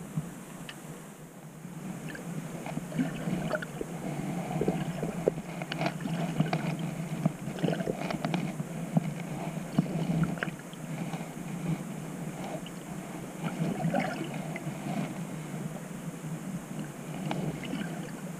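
Muffled underwater sound of moving water picked up by a submerged camera: a steady low rush with irregular small clicks, pops and crackles, busiest through the middle.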